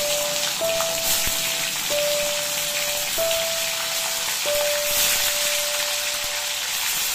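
Paneer pieces sizzling steadily in hot oil in a cast-iron kadai, under background music of slow, held single notes.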